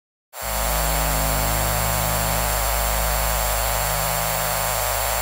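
Loud static hiss over a steady low electrical hum, cutting in suddenly just after the start: a synthesized broken-signal, TV-interference effect in the demo's soundtrack.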